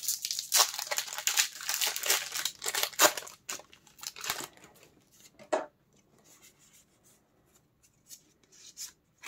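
A Pokémon booster pack's foil wrapper crinkling and being opened for about three seconds, then quieter rustles and a few soft clicks as the cards are handled.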